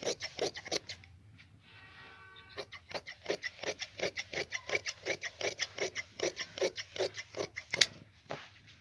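Large tailor's shears snipping through checked trouser cloth in a steady run of cuts, about three a second, with a short pause about a second in.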